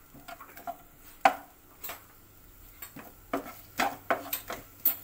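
A spatula scraping and knocking against a kadhai while sliced onions are stirred in oil, heard as a string of sharp clicks and scrapes that come quicker in the second half.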